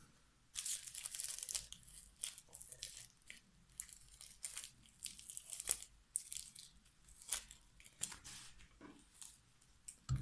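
Small crinkly cellophane gift bag being handled and opened, rustling and crackling in irregular bursts that begin about half a second in.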